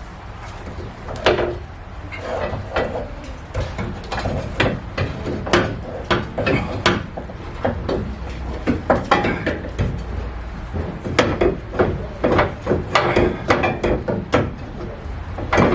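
Irregular knocks, clicks and clanks of hand work on a truck's rear suspension while a shock absorber is being freed and removed.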